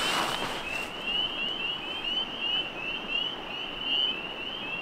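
A chorus of spring peepers: many short, rising peeps overlapping, several a second, without a break. A brief rustle in the first second.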